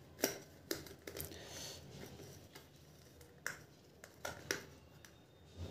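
Faint, scattered light clicks and taps, with a little rustling, as hands press a glued fabric spider down onto a subwoofer's voice coil and metal basket.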